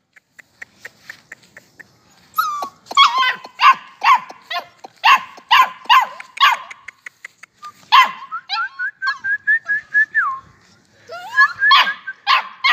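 Kohati Gulter puppy barking and yelping in high, sharp yaps, about two a second, starting about two seconds in. Around eight seconds in comes a quick run of short, higher yips, and more yelps follow near the end.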